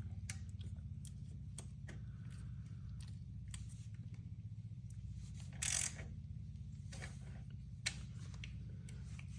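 Small clicks and knocks of metal exhaust parts being handled and fitted, with a short scrape a little over halfway through and a sharp click near the end, over a steady low hum.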